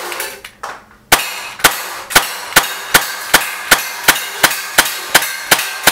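Umarex Legends Makarov CO2 BB pistol, a non-blowback steel-BB air pistol, fired in rapid succession. Sharp cracks start about a second in and come several times a second, each with a short ring after it.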